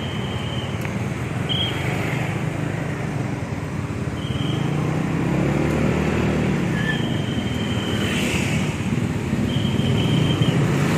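Street traffic heard from a motorbike taxi: scooter engines and cars running close by, with an engine note that rises and grows louder about halfway through. Short high-pitched tones sound several times.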